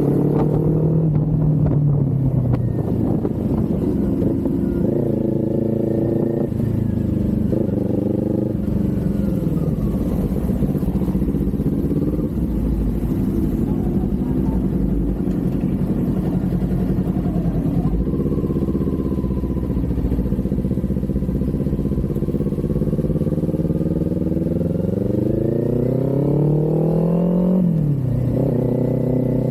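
Kawasaki Z400's parallel-twin engine running under way, its revs climbing and falling several times with quick drops as gears are shifted. Near the end a long rise in pitch cuts off sharply at a shift.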